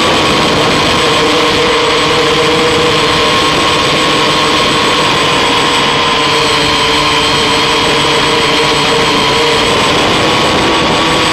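An octocopter's eight electric motors and propellers whining steadily in flight, heard close up: a dense, unchanging drone with several held pitches, plus a thin steady high tone above it.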